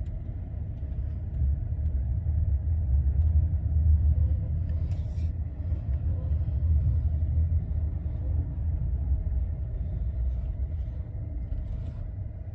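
Low, steady rumble of a vehicle on the move, swelling slightly partway through.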